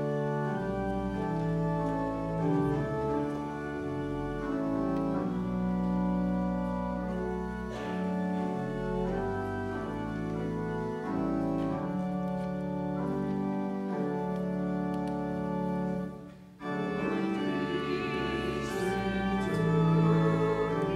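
Church pipe organ playing sustained hymn chords. After a short break about 16 seconds in, the congregation and choir begin singing the hymn with the organ.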